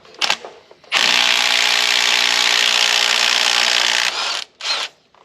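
Impact wrench running on a bolt of a Ford 460 engine for about three seconds, then a short second burst. The wrench is not strong enough for the job: a bigger impact is wanted.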